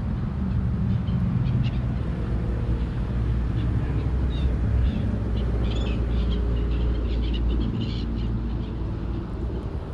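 Steady low rumble that eases off about three-quarters of the way through, with faint, short bird calls scattered above it.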